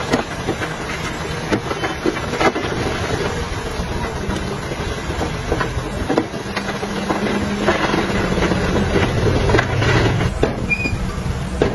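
Dump truck's diesel engine running under load, with irregular knocks and clatter throughout. A steadier low hum strengthens about halfway through.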